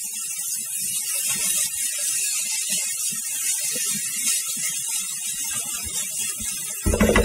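Rice frying in a hot wok with a steady sizzle, soy sauce just stirred in, while a metal spatula scrapes and taps against the pan as it is stirred. A brief louder sound comes near the end.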